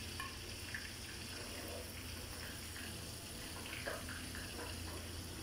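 Faint steady background noise: a low hum under an even hiss, with a few faint short sounds about a second in and near the middle.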